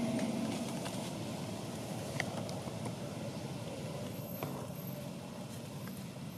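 Steady low rumble of a motor vehicle's engine, slowly fading, with a few faint clicks.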